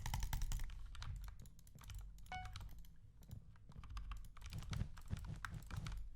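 Fast typing on a custom Anne Pro 2 mechanical keyboard with lubed red linear switches and XDA keycaps: a dense, irregular stream of key clacks.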